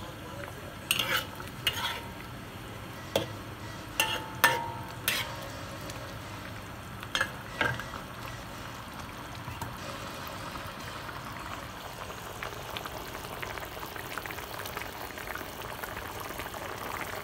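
Metal spatula stirring in a wok, scraping and clinking against the pan about eight times in the first eight seconds. After that, potato slices and ground meat simmering in sauce with a soft, steady bubbling and crackle.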